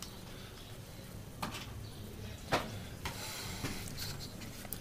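A few light clicks and knocks over low room noise: small objects and the camera being handled at close range.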